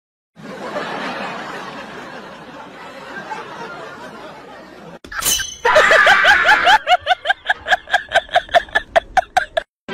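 A person laughing in a fast, even run of short 'ha' bursts, about five a second, stopping abruptly near the end. Before it, a few seconds of indistinct noisy background and a quick whoosh.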